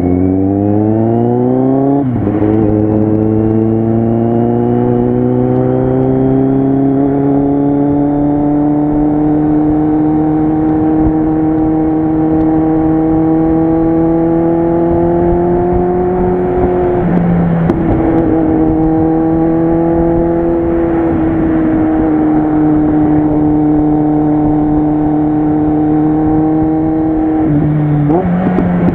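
Kawasaki Z800 inline-four engine and loud exhaust under way: it revs up quickly through a gear, drops in pitch at a shift about two seconds in, then holds steady cruising revs with a slow rise. The revs dip briefly just past halfway and again near the end.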